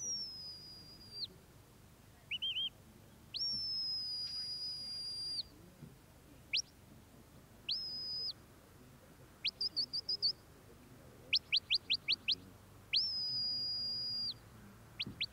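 A sheepdog handler's high whistle commands to a working border collie gathering sheep. It runs as a sequence of long held blasts with a sharp rising start, short upward flicks, a quick trill, and, about eleven seconds in, a rapid run of six or seven short rising pips.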